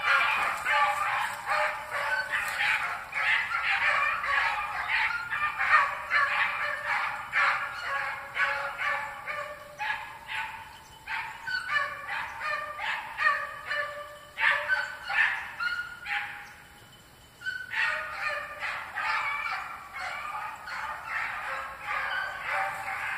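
A pack of young rabbit hounds baying in full cry as they trail a marsh rabbit, many overlapping cries one after another. The cry dies away briefly about three-quarters of the way through, then the hounds pick it up again.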